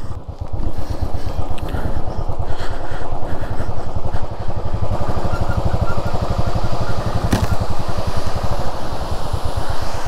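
Royal Enfield Classic's single-cylinder engine running at low revs with a steady, even beat as the motorcycle is ridden slowly. A brief click comes about seven seconds in.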